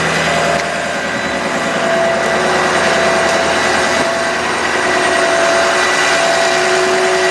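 Ford F-550 bucket truck's engine running at raised idle with the PTO engaged to drive the boom's hydraulics, a steady whine over the engine note.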